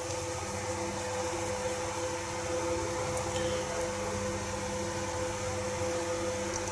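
A steady machine hum: a few held tones over an even hiss, with a faint tick around the middle.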